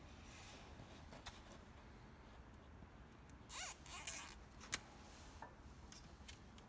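Plastic cable ties zipped tight around a folded wiring loom: two quick ratcheting zips about three and a half seconds in, then a few small clicks.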